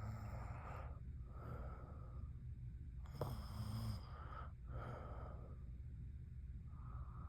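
A sleeping girl breathing heavily and snoring, one noisy breath about every one and a half seconds. A louder snore with a low held tone comes a little past the middle.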